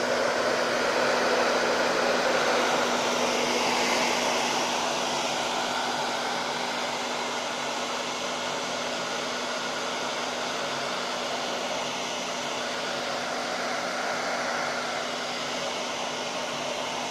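Hair dryer blowing steadily, aimed at a laptop screen to heat and soften the glue that holds the display. A steady whoosh with a low hum under it, a little quieter from about five seconds in.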